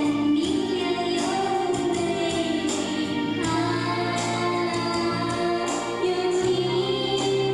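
Singing of a pop song over instrumental backing music, with long held notes.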